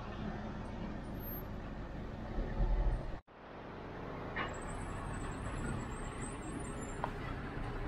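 Street traffic ambience: vehicle engines running in a steady background hum with low rumble. The sound drops out abruptly for a moment about three seconds in, at an edit cut.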